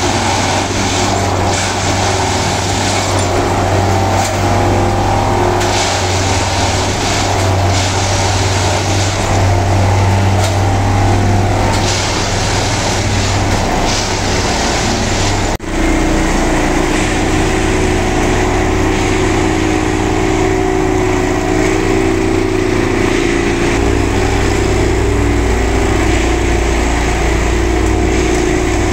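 Railway track tamping machine packing ballast under the track: its engine and hydraulics run steadily, with louder rattling surges coming and going every second or two in the first half. After a short break about halfway through, a steadier, lower drone.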